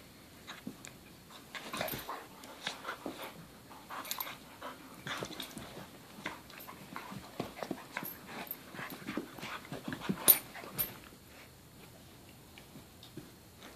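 A puppy and a border collie play-fighting, making irregular short snuffling, mouthing and scuffling noises with light panting. The noises are busiest through the middle, with one sharp loud click about ten seconds in, and die down near the end.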